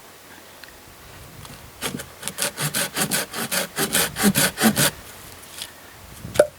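Hand saw cutting wood: a quick run of back-and-forth strokes, about six a second, starting about two seconds in and lasting about three seconds. A single sharp knock near the end.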